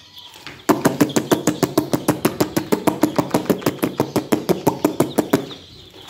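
A rapid, even run of sharp knocks, about seven a second, starting just under a second in and stopping shortly before the end.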